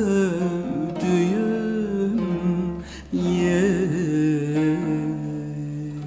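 Turkish folk music: plucked string accompaniment carrying the melody, with a held, wavering sung note trailing off early on. A new phrase starts about three seconds in, and the music then begins to fade.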